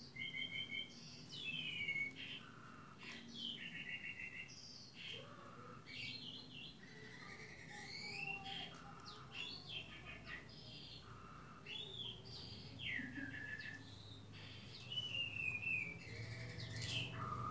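Small birds chirping and twittering in a continuous string of short high calls, several sliding down in pitch and some broken into quick trills.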